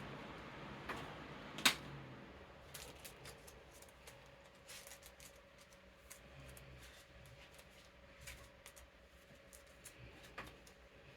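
Playing cards being handled and slid into plastic card sleeves: faint, scattered clicks and rustles, with one sharper click just under two seconds in. A fan hums faintly and steadily underneath.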